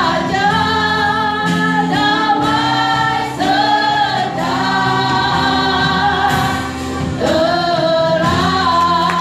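A choir of women and children singing together, with long held notes.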